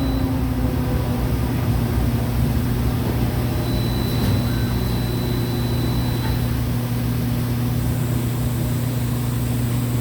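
Heidelberg Eurobind four-clamp perfect binder running: a steady mechanical hum with a couple of faint clicks about four and six seconds in.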